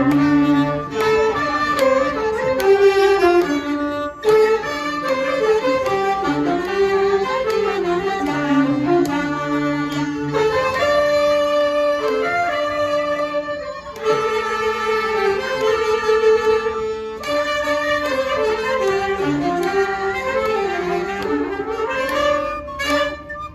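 An amateur ensemble playing an instrumental tune live, a melody of held notes moving in steps over an accompaniment, with short breaks between phrases.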